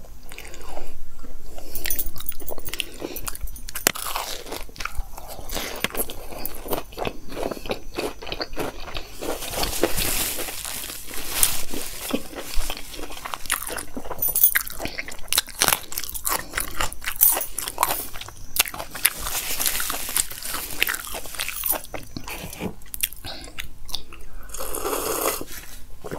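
Close-miked crunching and chewing of crispy double-fried cauliflower pakoras: irregular crackling bites and chews, thickest about ten seconds in and again around twenty seconds.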